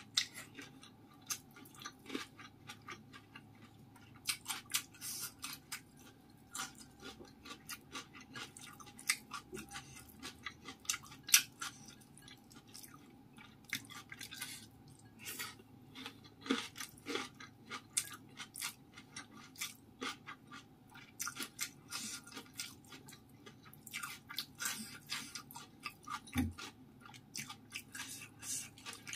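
Close-miked chewing of rice and steamed fish, with many irregular wet mouth clicks and smacks.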